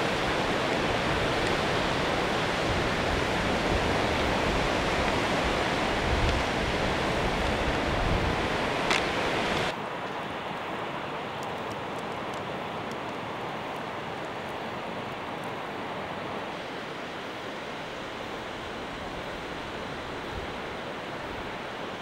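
Caspian Sea surf washing on the shore, with wind rumbling on the microphone. About ten seconds in the sound drops abruptly to a quieter, steady wash of surf without the wind rumble.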